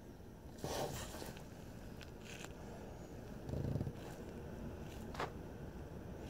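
Quiet cabin of a parked car: a low steady rumble, with a few brief rustles and a low thump, and a sharp click about five seconds in.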